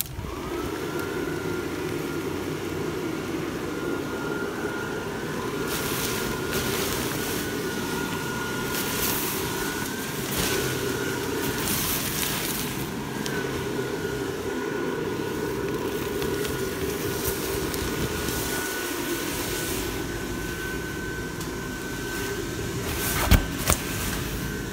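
Base blower fan of a 12-foot inflatable pumpkin reaper switching on, its whine rising in the first second, then running steadily as it inflates the nylon figure. The fabric rustles and flaps now and then.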